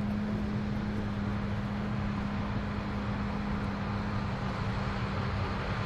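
Combine harvester running steadily while harvesting corn, a constant low hum over a broad mechanical rumble.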